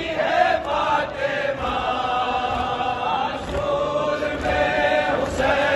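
A large group of men chanting a lament together in unison, many voices singing one line.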